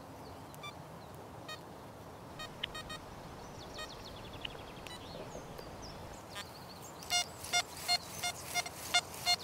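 XP Deus metal detector set to about 18 kHz: a few faint short beeps, then from about seven seconds in a quick run of repeated target beeps as the coil sweeps back and forth over a faint, deep target. At the higher frequency the signal comes through a little crisper.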